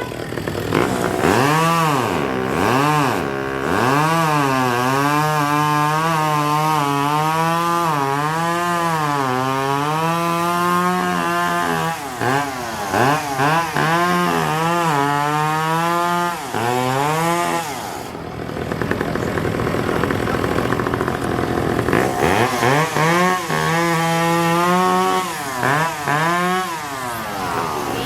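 Two-stroke racing chainsaw at full throttle cutting through a log, its pitch sagging as the chain bogs in the wood and rising again between passes. It drops back for a few seconds about two-thirds of the way through, then cuts again near the end.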